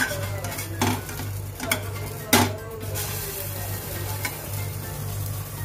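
Pancake batter sizzling in an oiled non-stick frying pan as a spatula scrapes and knocks against the pan three times in the first few seconds, each knock ringing briefly, over a low steady hum.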